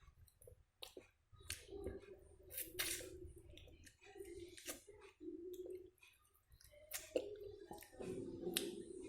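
A person chewing food close to the microphone: irregular wet, squishy mouth sounds with sharp clicks scattered through.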